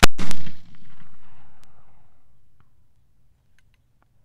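A single black-powder rifle shot fired at high elevation for long range: a sharp crack at the very start, a quick echo about a quarter second later, and a long echo fading away over about three seconds.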